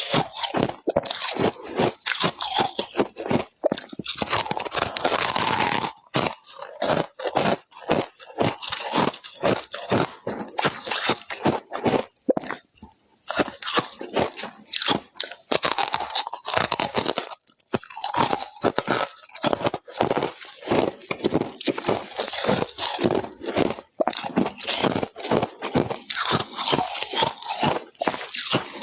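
Ice being bitten and chewed close to the microphone: rapid, crisp crunches one after another, with a short pause about halfway through.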